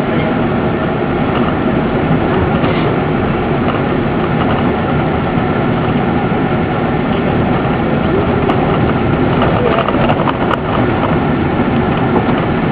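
Steady cabin noise inside a 15-passenger Ford van driving on a rough dirt fire road: engine and tyres running, with a few light knocks about ten seconds in.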